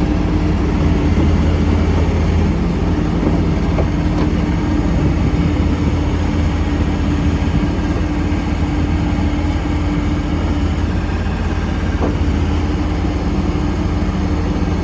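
John Deere CT332 compact track loader's diesel engine running steadily at an even speed, with a couple of faint ticks.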